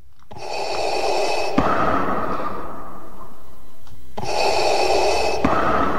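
Hasbro BB-8 toy robot rolling across a wooden floor, its drive motor whirring and the ball rumbling on the boards. The noise changes character a few times as it drives.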